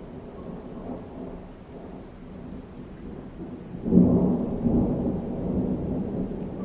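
Thunder: a low rolling rumble, then a sudden loud peal about four seconds in that rolls on.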